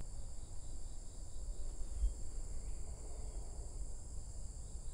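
A steady, high-pitched chorus of insects, over a low rumble.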